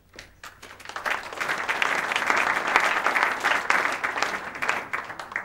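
Audience applauding: a few separate claps at first, quickly filling into steady applause, then thinning out near the end.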